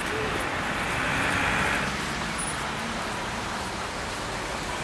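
Street traffic: a car passing on the road, its tyre and engine noise swelling about a second in and easing off into a steady hum of traffic.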